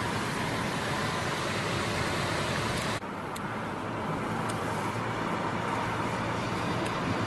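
Steady road and engine noise heard from inside a moving vehicle. The high hiss drops suddenly about three seconds in, and a few faint ticks follow.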